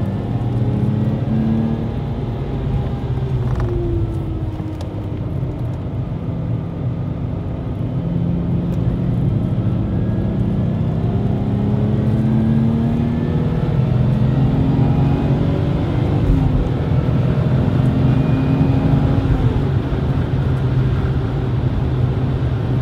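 Supercharged Lexus IS200's 2.0-litre straight-six engine heard from inside the cabin at track pace, its pitch rising and falling again and again as the car accelerates and lifts, over steady road noise.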